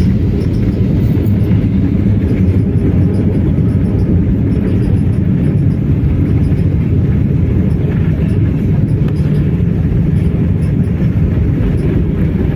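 Steady low rumble inside a jet airliner's cabin: engine and airflow noise as the plane comes in to Bali.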